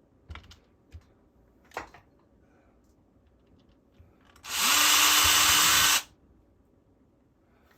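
Power drill with a small bit spinning up quickly and running steadily for about a second and a half while drilling a mounting hole, then stopping abruptly. A few light clicks and knocks of handling come before it.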